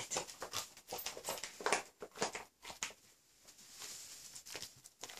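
Rhodesian Ridgeback puppy pawing and chewing at a red bag on her bed: irregular crinkling rustles and small clicks, with a quieter spell about halfway through.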